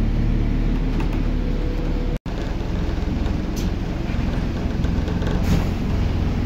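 Scania N230UD double-decker bus heard from inside the passenger cabin, its engine and running noise a steady low drone. The sound drops out sharply for a moment about two seconds in, then the same drone carries on with a few faint rattles.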